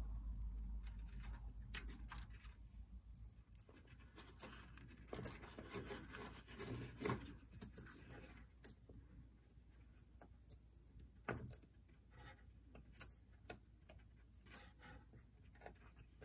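Faint scattered clicks, scratches and rustles of hands handling thin hookup wires and pressing a small circuit board onto double-sided foam tape on the benchwork, with a low hum fading out over the first couple of seconds.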